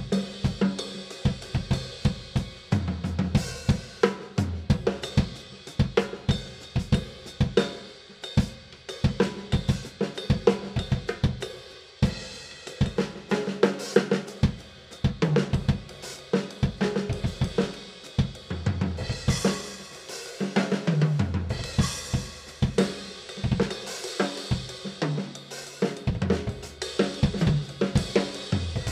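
Drum kit played in a steady, busy groove, with snare, bass drum, hi-hat and Sabian cymbals.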